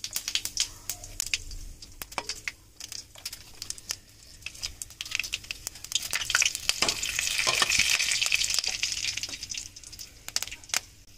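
Spices sizzling and crackling in hot mustard oil in a kadhai as they are sautéed and stirred. Sharp pops run throughout, building to a steady hiss past the middle and easing near the end.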